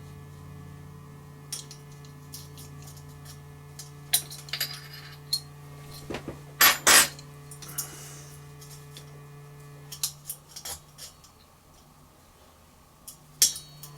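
Small metal clinks and clicks from handling exhaust-pipe springs and a spring-puller tool, with a loud double clack about seven seconds in, over a steady low hum.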